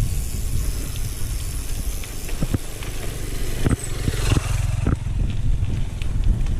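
Steady low rumble with scattered knocks and clicks from a mountain bike being ridden, as picked up by a GoPro on the bike or rider.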